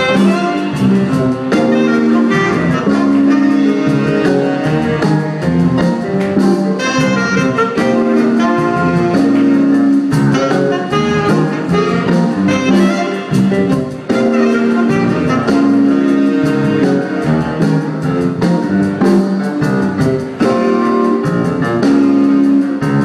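Live jazz band with a section of three saxophones playing a tune together, sustained horn notes over a steady beat.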